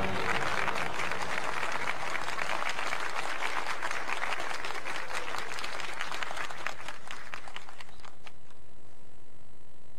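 A crowd applauding: dense clapping that thins out and stops about eight seconds in.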